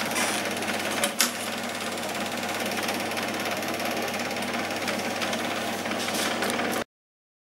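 Cine film projector running, its film transport mechanism clattering steadily over a low hum. There is a sharp click about a second in, and the sound cuts off abruptly near the end.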